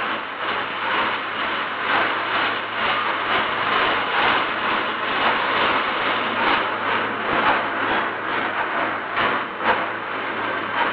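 Continuous din of heavy machinery in a locomotive works erecting shop: a dense metallic clatter with frequent sharp knocks over a steady low hum.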